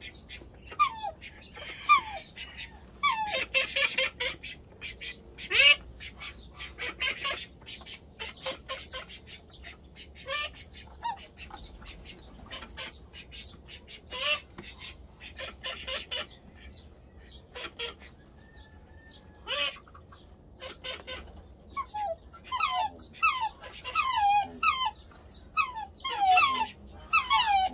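Black swans calling: many short falling calls, with harsh noisy bursts among them, coming in quick runs near the end.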